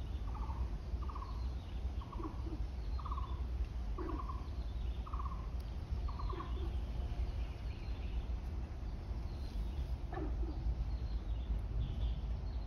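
An animal calling in short trilled notes, about one a second, seven times, stopping around six seconds in, over a steady low rumble.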